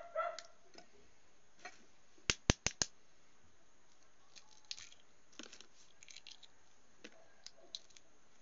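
A balut's eggshell being cracked and peeled by hand: four sharp taps close together about two seconds in, then faint scattered crackles of shell breaking off.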